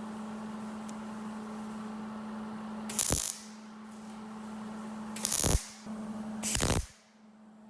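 Three short bursts of welding crackle, about 3, 5 and 6.5 seconds in, as steel inlays on a car's A-pillar are tack-welded in, over background music with a steady hum.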